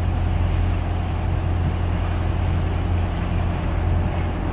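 A bumboat's engine running steadily under way, a constant low drone, with water rushing along the hull.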